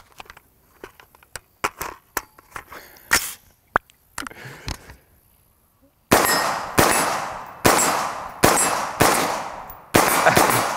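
Metallic clicks and clacks of a magazine change on a Stag 15 AR-15, with the bolt closing sharply twice. Then, about six seconds in, a string of about seven semi-automatic 5.56 rifle shots through its muzzle brake, roughly one every two-thirds of a second.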